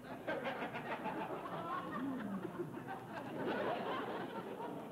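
Audience laughing and chuckling, mixed with a voice.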